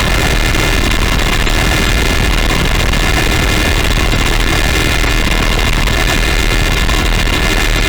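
Synthesizer played through the Snowstorm digital distortion pedal, a steady wall of harsh, noisy distortion with heavy bass. The pitched synth tone shows through the noise at an unchanging level.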